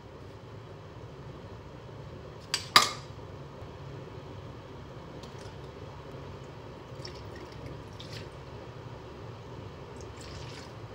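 Seasonings going into a pot of simmering komatsuna over a steady low hum. A sharp double clack of the plastic sugar container comes about two and a half seconds in, then small clicks of bottle caps and spoons, and cooking sake is poured from its bottle into the pot.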